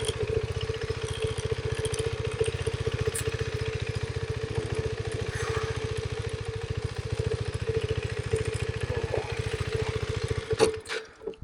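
KTM 390 Adventure's single-cylinder engine idling with an even, fast pulse. It is switched off about ten and a half seconds in, with a short knock as it stops.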